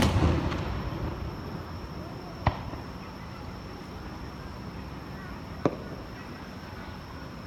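Fireworks shell bursting with a loud boom that rumbles and fades over about a second and a half, followed by two single sharp cracks a few seconds apart.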